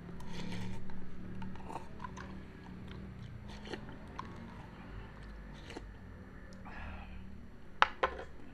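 A person slurping and chewing cup noodles eaten with a spoon, with small clinks of the spoon against the cup. Two sharp clicks near the end are the loudest sounds.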